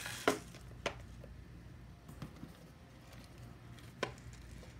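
Packaged food items handled and set down on a table: a few light knocks, the loudest about a quarter second in, another near one second and one near the end.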